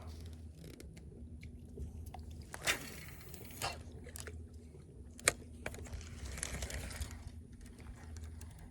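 Scattered clicks and crunching handling noises, with two short rushes of noise, over a faint steady low hum.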